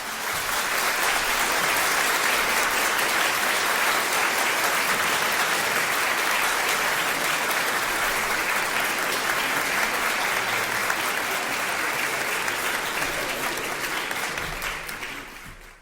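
Crowd applause, a steady dense clapping that fades out near the end.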